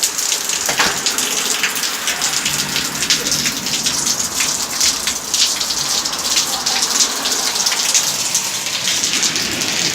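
Heavy rain falling steadily, with dense crackling patter of drops hitting a hard surface close to the microphone.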